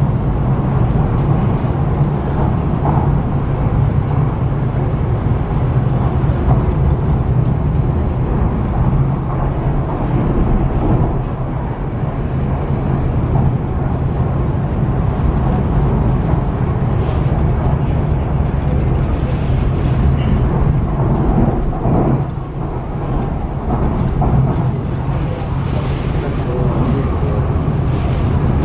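MTR East Rail Line R-train, an electric multiple unit, running along the line: a steady rumble of wheels on rail with a constant low traction hum. A few short clicks and knocks come in the second half.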